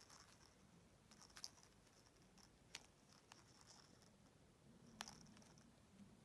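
Faint scratching and rustling with a few sharp little clicks: kittens clawing and pawing at a fabric toy.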